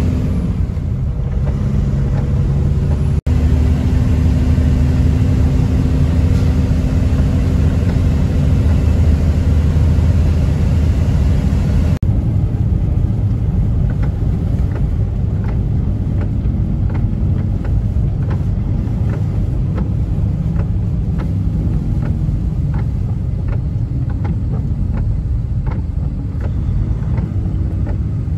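Truck engine running steadily with tyre and road noise on a wet highway, heard from inside the cab. The sound changes abruptly twice, and in the second half faint regular ticks sit over the drone.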